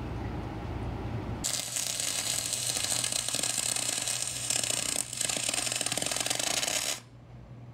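Electric arc welding on the boat's new bulwark plate: a dense, steady crackling sizzle that starts suddenly about a second and a half in, breaks off for a moment around five seconds, and stops abruptly about seven seconds in. Before it there is a low rumble.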